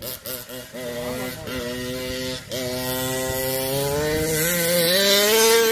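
Small 30.5cc two-stroke gasoline engine of a 1/5-scale RC buggy, blipped in a few quick bursts of throttle, then held open with its pitch climbing steadily for the last three seconds, with a brief lift about halfway.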